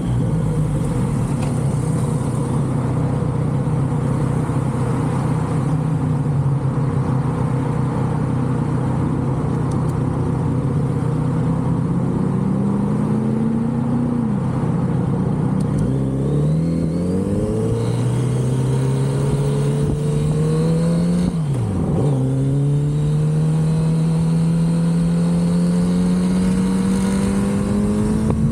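Kawasaki Z900RS's inline-four running through its stock exhaust under way. It holds a steady note for about twelve seconds, then climbs in pitch as the bike accelerates, drops sharply at a quick upshift about two-thirds through, and climbs again to another shift at the end.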